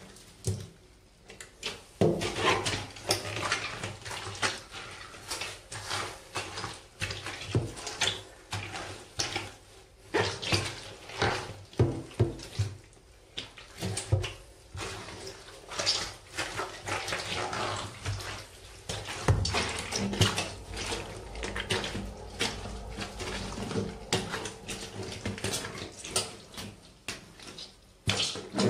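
Rubber boots stamping on and grinding lettuce and other food on the floor of a bathtub: a dense, irregular run of wet squelches, squishes and crunches. It starts about two seconds in.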